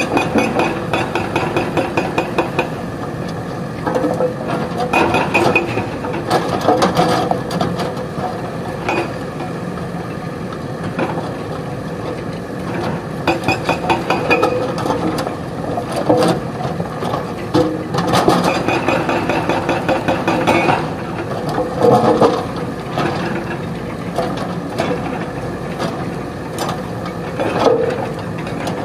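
JCB 3DX backhoe loader's diesel engine running under load as the rear backhoe bucket digs into rocky soil. Stones and the steel bucket clatter and knock repeatedly over the engine noise.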